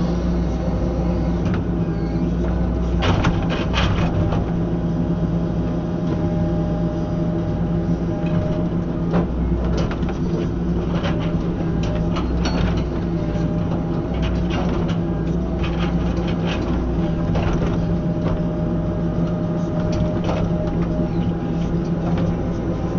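Tracked excavator's engine running steadily with its ground saw attachment working, a constant low drone. Sharp cracks and knocks come irregularly through it.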